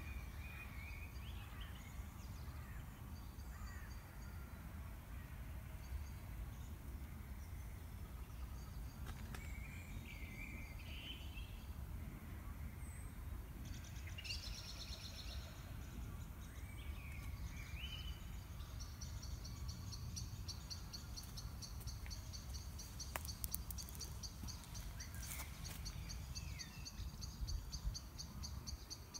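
Outdoor ambience: small birds give short, scattered chirps over a steady low background rumble. About two-thirds of the way through, a fast, high, evenly pulsing trill starts and keeps going.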